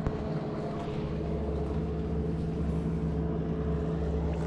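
A motor running steadily: a low rumble with a constant hum that does not change.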